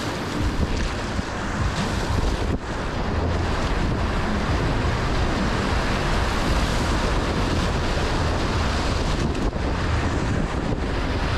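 Whitewater rushing and churning around a canoe's bow as it runs a rapid, steady and loud, with a low rumble of wind buffeting the action-camera microphone.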